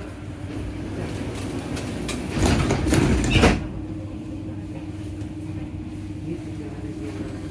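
Metro train's sliding doors closing, a louder rush of noise that ends abruptly about three and a half seconds in as they shut. After that comes a steady hum with a held low tone from the train.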